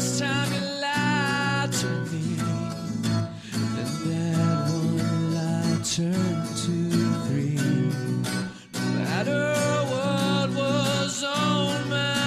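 A song: a man singing over acoustic guitar.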